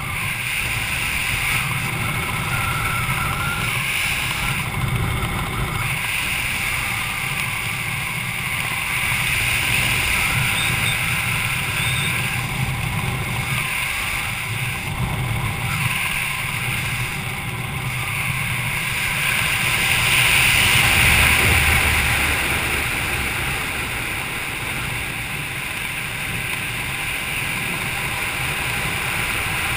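Wind rushing over a GoPro's microphone during a parachute canopy descent: a steady rumbling noise that swells about two-thirds of the way through.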